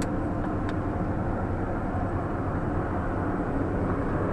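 Steady engine and road noise of a van driving, heard from inside the cabin, with a couple of faint clicks just after the start.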